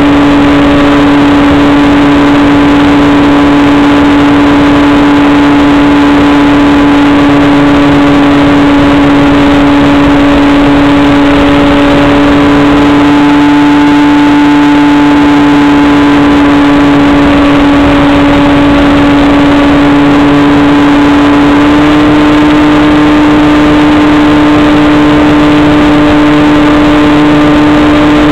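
Model airplane's engine running steadily at high throttle, recorded from a camera on board, very loud and close with a constant drone and rushing air noise; the pitch steps up slightly about two-thirds of the way through.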